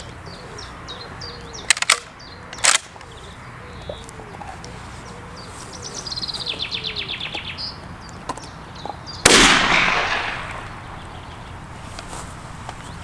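A single shot from a 12-gauge pump-action shotgun about nine seconds in, a sharp blast that rings away over a second or so, after a couple of sharp clicks from handling the gun about two seconds in. Songbirds sing throughout.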